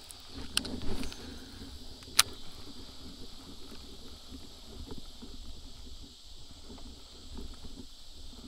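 Low, fluttering wind rumble on the microphone, with two sharp clicks: one under a second in and a louder one about two seconds in.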